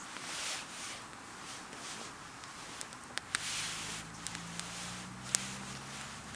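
Wood campfire crackling, with scattered sharp pops and a couple of brief hissing swells. A low steady hum comes in about halfway through.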